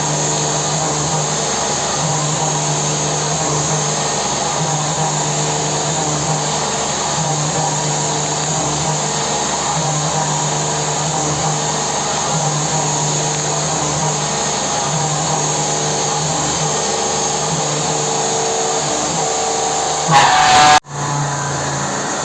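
CNC milling machine running with a steady mechanical hum and whine. Near the end it briefly gets louder with a rising whine, cuts out abruptly, then carries on.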